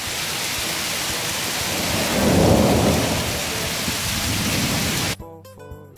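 Torrential rain pouring steadily, with a low rumble of thunder swelling and fading about two seconds in. The rain sound cuts off abruptly about a second before the end.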